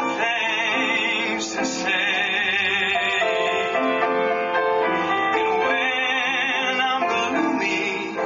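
A voice singing long held notes with a wide vibrato, in short phrases, over steady instrumental accompaniment.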